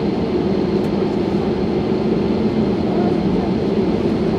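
Steady jet airliner noise: a constant, even rumble that holds at the same level throughout.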